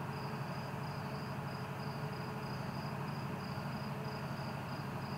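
Crickets chirping steadily, about three chirps a second, over a steady low hum.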